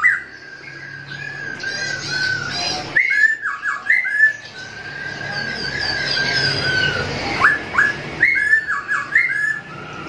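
Caged songbird singing: a long held whistle, broken twice by runs of quick sharp notes that swoop up and down, with higher chirps above it.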